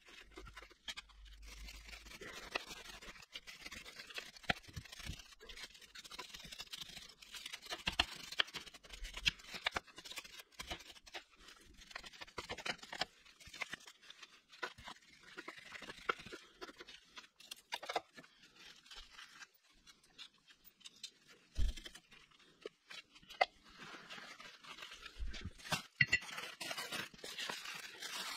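Hand tools scraping, rubbing and clicking around a motorcycle's front chain sprocket as caked sand, mud and oil is cleared from it, with a few sharper knocks.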